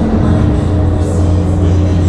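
Loud music with a steady low bass drone.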